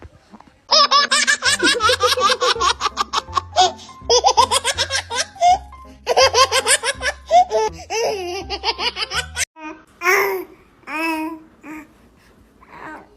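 A baby laughing hard in long runs of rapid, high-pitched giggles over background music with a bass line. The music and laughter cut off a little over two-thirds of the way in, followed by a few short baby coos and babbles.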